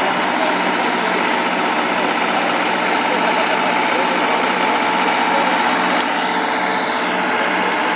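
Massey Ferguson 35 tractor engine running steadily under load as it tows a weight-transfer pulling sled, with voices in the background.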